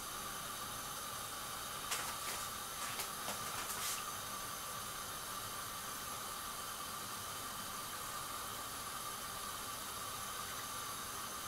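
Hot oil sizzling steadily as balls of mikate (puff-puff) dough deep-fry in a wok, with a few light clicks of a fork against the pan between about two and four seconds in.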